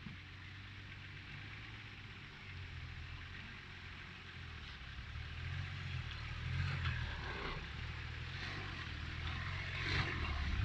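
Nissan Patrol Y60 on 37-inch tyres crawling slowly over rocks out of a creek, its engine running low and steady and getting louder as it climbs closer. A sharp knock about ten seconds in.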